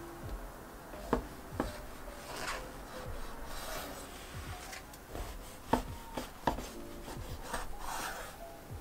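Kitchen knife sawing through stacked slices of soft white bread with a scratchy rasp, the blade knocking sharply on a wooden cutting board four times.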